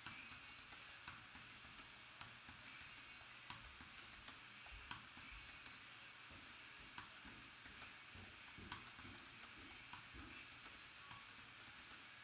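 Near silence: faint room hiss with scattered small, irregular clicks.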